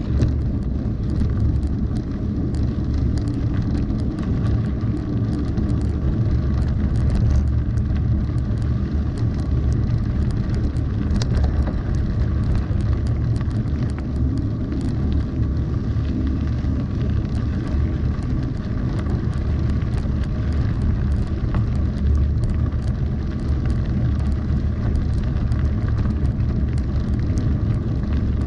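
Mountain bike rolling down a gravel and dirt road: a steady low rumble from the tyres, with frequent small clicks and rattles over loose stones.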